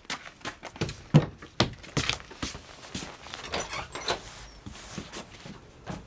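A series of irregular knocks and thumps, the loudest a little over a second in.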